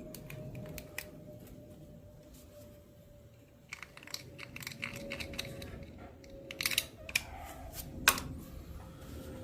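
Scattered small clicks, taps and scrapes of hand work on a lathe headstock's levers and parts. They come thicker in the second half, with one sharp click about eight seconds in, over a faint steady hum.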